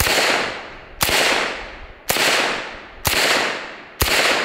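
Calico M950 9mm pistol firing five single shots about a second apart, each shot trailing off in a long echo.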